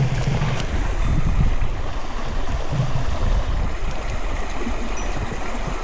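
A mountain stream rushing steadily, loud and close.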